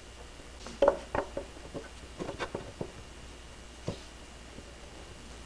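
Light, irregular taps and knocks of a wooden picture frame being handled and set against the table, about seven in all, the clearest one near the end.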